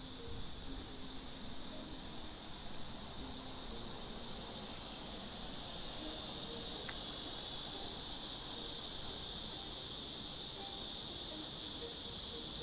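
A steady, high-pitched chorus of buzzing insects that grows slightly louder about halfway through.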